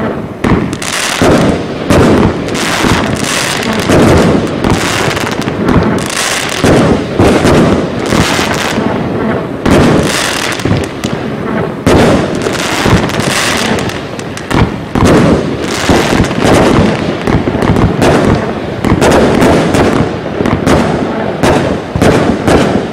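Heron Cake 456, a 178-shot firework cake of up to 30 mm calibre, firing a rapid, continuous volley of launches and crackling aerial bursts, several shots a second.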